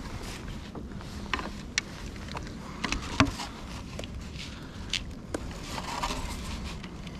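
Scattered knocks and clicks of a fish-measuring board, landing net and a landed lingcod being handled on a plastic fishing kayak's deck, the loudest knock a little past three seconds in, over a steady low rumble.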